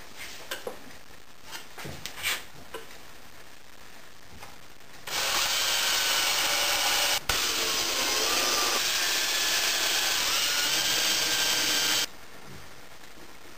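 Yellow cordless drill running in a plywood box for about seven seconds, its motor whine shifting in pitch as it works, with a brief stop about two seconds in. Before it, a few light knocks of wood and a tool being handled.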